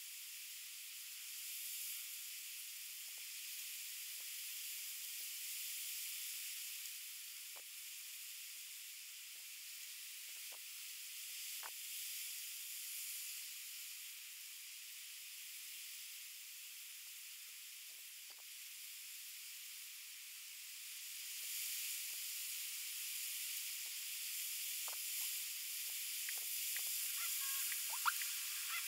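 Steady high hiss of outdoor background noise, with faint scattered ticks and a few brief high chirps near the end.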